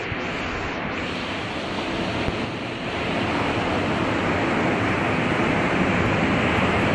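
Ocean surf breaking on a sandy beach, a steady rushing wash, with wind buffeting the microphone.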